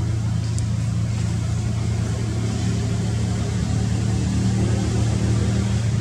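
A steady low engine hum that holds one pitch, with a faint high squeak about half a second in.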